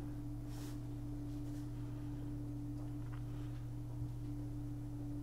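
Steady low electrical hum at two fixed pitches, with faint rustling and a soft knock about four seconds in.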